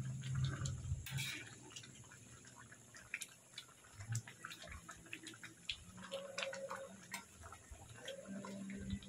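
Long metal spatula stirring curry gravy in a steel wok: scattered light clicks and scrapes of metal on the pan as the gravy sloshes. A low hum is loudest in the first second.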